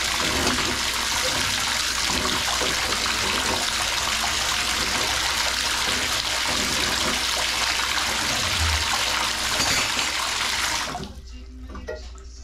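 Water running from a bathtub spout into the tub, a steady splashing rush that cuts off about eleven seconds in when the valve is shut.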